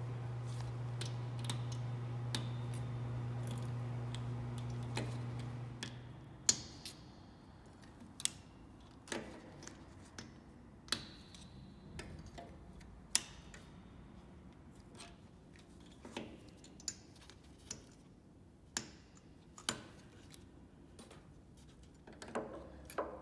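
Sharp metallic clicks and snaps, about a dozen at irregular intervals, some ringing briefly, as a pliers-type tool works wire free at the tuning pins of an antique Erard piano. A steady low hum runs for the first six seconds and then stops.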